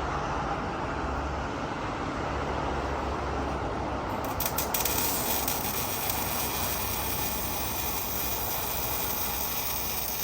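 Steady rumble and noise of a vehicle in motion. A few clicks come about four and a half seconds in, after which the sound turns hissier.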